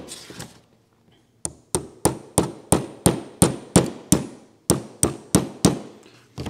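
Small hammer tapping the wedge into a VForce R4 reed valve cage to seat the new reed petals: a run of about thirteen light, sharp taps, roughly three a second, with a short break about two thirds of the way through.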